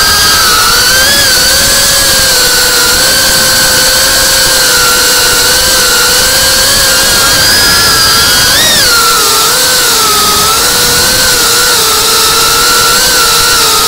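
FPV drone's brushless motors and propellers whining, heard from the camera on the drone, the pitch wavering with the throttle and jumping briefly up and down about nine seconds in.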